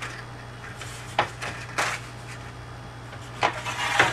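Sheet of paper and a ruler being handled and marked on a tabletop: a few short scratchy rustles, with a quick cluster of them near the end, over a steady low hum.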